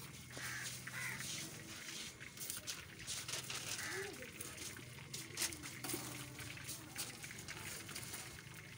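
Scattered clicks and rustles of a plastic bag, paper and fried fish being handled by hand, over faint voices and a low steady hum.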